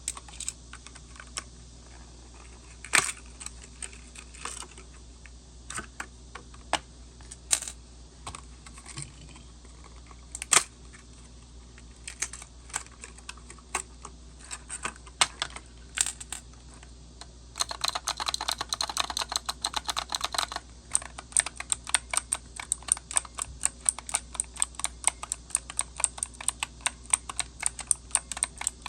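Typing on a computer keyboard. It starts as scattered keystrokes with a few louder clacks, turns into a dense stretch of rapid clatter about two-thirds of the way in, then settles into fast, steady typing.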